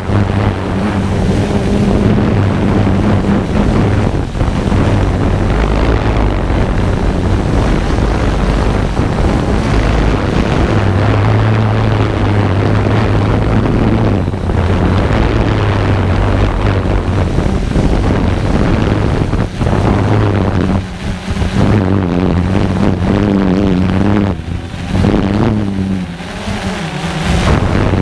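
Multirotor drone's electric motors and propellers running steadily, heard from the camera it carries, with wind noise over the microphone. The hum wavers in pitch and dips briefly a few times near the end.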